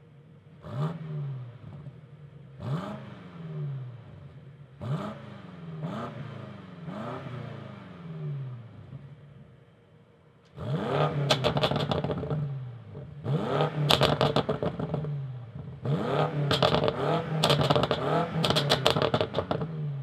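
BMW F90 M5's 4.4-litre twin-turbo V8 free-revved at standstill through the factory M Sport exhaust: about five short blips with the exhaust valves closed, then, from about halfway in, with the valves open, much louder revs with crackles and pops as the revs fall.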